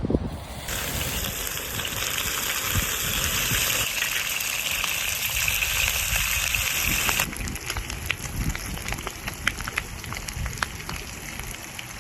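Pork belly sizzling on a hot grill: a dense, even hiss that thins to scattered crackles and spitting pops of fat about seven seconds in, with wind rumble on the microphone underneath.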